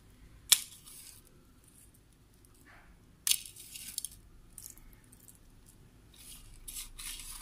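A few sharp clinks against a glass serving dish: the loudest about half a second in, another just after three seconds, then smaller ticks and soft rustling near the end.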